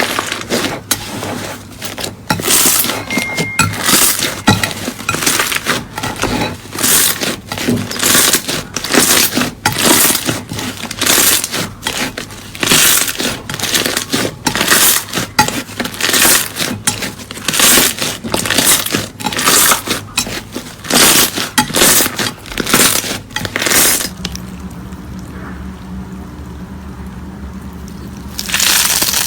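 Slime being squeezed and pressed by hand, giving crackling, crunchy squishes about once or twice a second. The squishing stops a few seconds before the end, then comes back once more.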